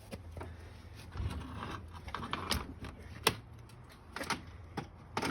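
Irregular knocks, clanks and scraping from a heavy ATC three-wheeler being shoved and dragged, with a sharp knock a little past three seconds in.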